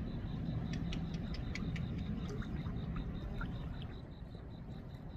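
Outdoor harbourside ambience: a low rumbling background noise with faint, short high chirps and clicks through the first few seconds, growing a little quieter near the end.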